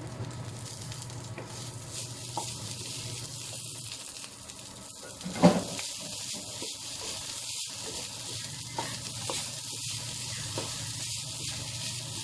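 Rice frying in a pan, a steady sizzle with the short scrapes and clicks of it being stirred. There is one louder knock about halfway through.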